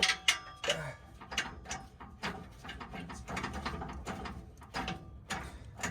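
Irregular metallic clicks, knocks and rattles as exhaust parts (catalytic converter and pipes) are handled and worked into place under the truck.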